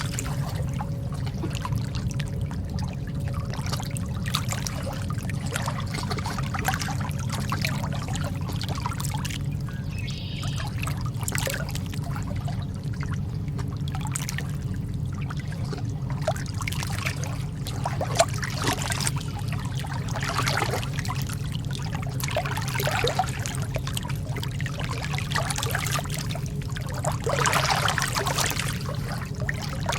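Calm sea water lapping and splashing in small, irregular trickles and slaps, swelling slightly near the end, over a steady low hum.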